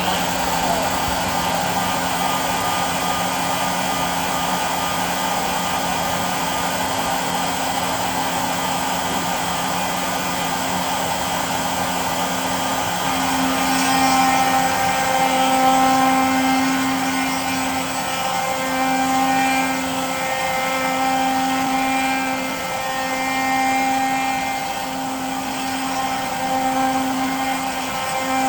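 DIY CNC router's spindle running steadily while milling aluminium. About halfway through, an added whine starts to come and go in stretches of a second or two.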